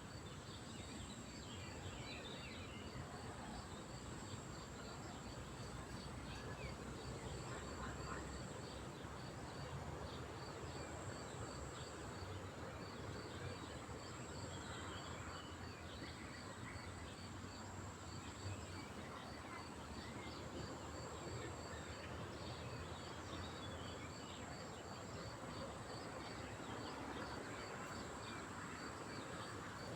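Natural outdoor ambience: insects keep up a steady high buzz and a regular repeating chirp. Scattered small bird calls come and go over a soft, even background hiss.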